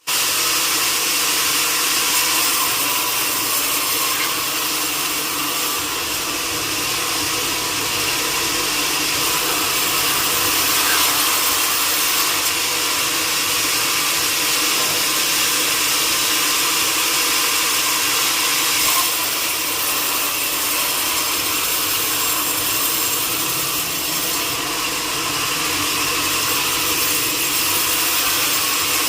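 Sawmill saw cutting steadily through a teak log, a loud continuous sawing noise that holds without a break.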